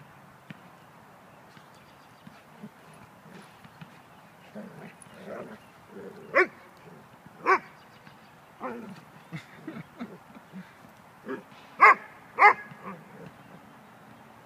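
Dogs play-fighting, giving short scattered barks. The two loudest barks come close together near the end.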